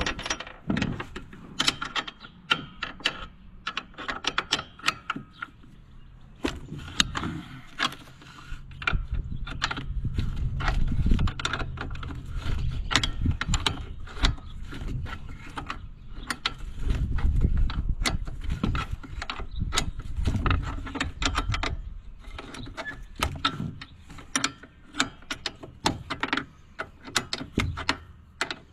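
Socket ratchet clicking and metal parts clinking as seat-bracket bolts on a garden tractor are worked loose, with two stretches of a low mechanical hum near the middle and about two-thirds through.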